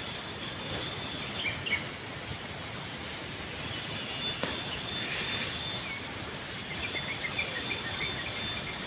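Outdoor ambience: a steady hiss with a thin high whine, and small birds giving short, high chirps in quick series throughout.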